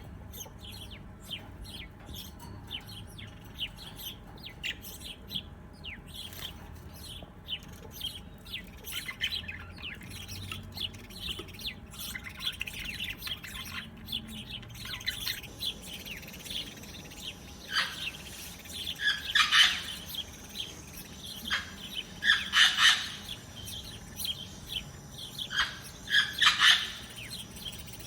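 Small birds chirping: a steady stream of quick, short high chirps, growing into louder clustered bursts of chirping in the second half.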